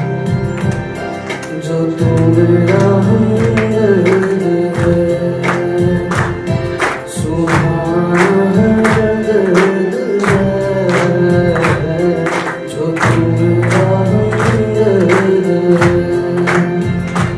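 A man singing a Hindi song into a microphone over a recorded backing track with a steady beat.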